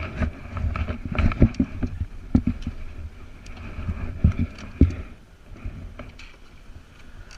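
Dirt bike engine idling with a low, steady rumble, overlaid by irregular knocks and thumps, the loudest between about one and five seconds in.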